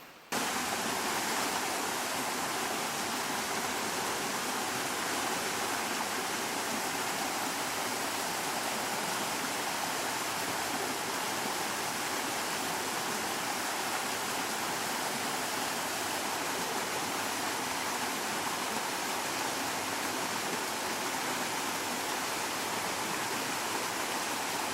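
Small bush stream rushing steadily over small waterfalls, an even hiss of water that starts abruptly a moment in.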